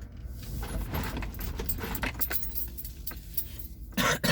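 Low rumble of a car on the move, heard from inside, with a run of light metallic clicking and jingling over it. There is a short louder burst near the end.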